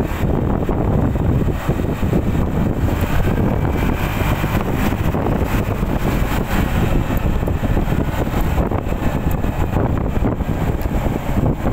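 Motor scooter riding at road speed: a steady rush of wind buffeting the microphone over the scooter's engine and tyre noise.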